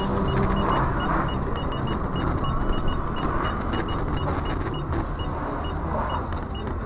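A moving car's steady road and engine noise, with a short high-pitched beep repeating at an uneven rate of about three to four times a second.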